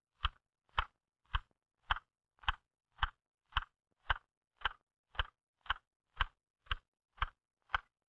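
L C Smith manual typewriter keys struck one at a time at a steady, even pace, about two clacks a second. The home-row keys are being hit alternately in a keystroking drill for precision and rhythm.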